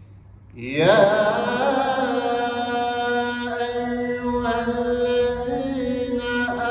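A man recites the Quran in the melodic Turkish tilavet style into a microphone. After a brief pause his voice slides up about half a second in and settles into long, ornamented held notes.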